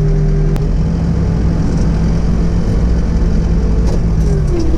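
New Holland B95 backhoe loader's diesel engine running steadily, its note dipping briefly in pitch and recovering near the end. A single sharp click sounds about half a second in.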